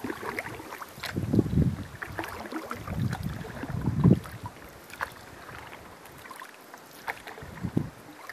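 Canoe moving on calm water: paddle strokes splashing and dripping in scattered small splashes, under uneven low rumbles of wind on the microphone.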